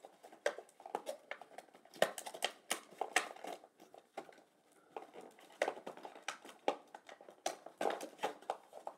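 Hands working inside a toy's cardboard box with a plastic window, making irregular clicks, taps and light crinkles as a small plastic pickaxe accessory is pulled free.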